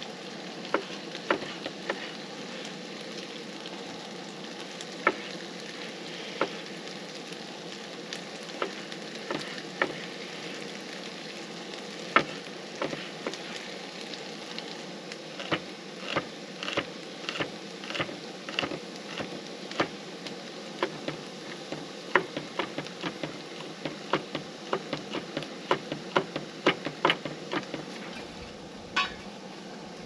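Chef's knife knocking on a wooden cutting board while slicing tomatoes and dicing garlic: scattered single knocks at first, then quicker runs of chopping from about halfway through. A steady sizzle runs underneath.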